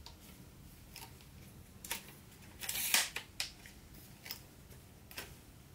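Handling noise from a smartphone camera being moved to a new angle: a handful of light clicks and short rustles at irregular intervals, the loudest about three seconds in.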